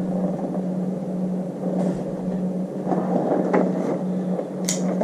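Steady low hum on one constant pitch, with a couple of light clicks near the end.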